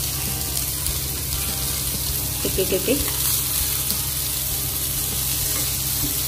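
Rava-coated fresh Bombay duck (bombil) pieces sizzling steadily as they shallow-fry in oil on a flat tawa, with a spatula scraping the pan as the pieces are turned over.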